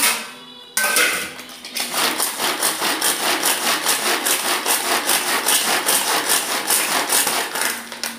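Pull-string manual food chopper being yanked over and over, its blades whirring and chopping through onion, green chilli, ginger and garlic in the bowl. A rasping whir in a quick, even rhythm of pulls that starts about a second in and stops just before the end.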